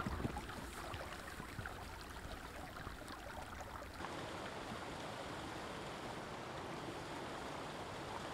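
Shallow stream running over stones, with a boot stepping in the water at the start. About halfway through it changes abruptly to the steady rush of a small waterfall.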